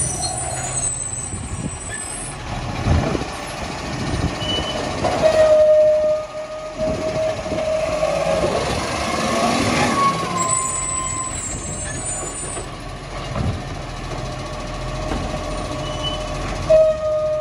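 Iveco side-loading recycling truck running while its hydraulic side arm grabs a wheelie bin and lifts it to tip into the hopper. A steady whine comes in about five seconds in and rises in pitch, and a couple of short sudden hisses are heard along the way.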